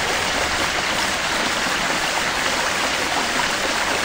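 Small rocky creek rushing steadily over stones and a little cascade.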